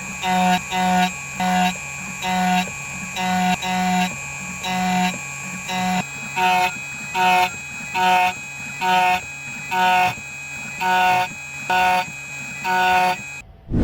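Background music: a plucked, bell-like melody of short notes, about two a second, stopping abruptly near the end.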